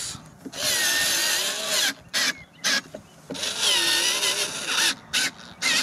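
Cordless screwdriver driving in the screws that fix a lawnmower's handle: two whirring runs of about a second and a half each, the motor's pitch dipping and recovering as it works, with a few short clicks between them.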